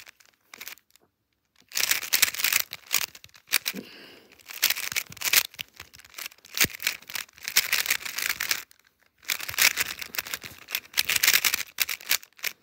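GAN 11 M Pro magnetic 3x3 speedcube being turned by hand: rapid clicking and clacking of its layers in runs of moves, with short pauses between them.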